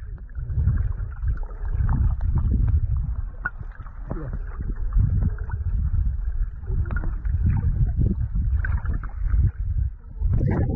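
Muffled underwater sound of shallow sea water picked up by a submerged camera: a low, uneven sloshing rumble with a few faint ticks. Just before the end the camera breaks the surface and the sound turns open and splashy.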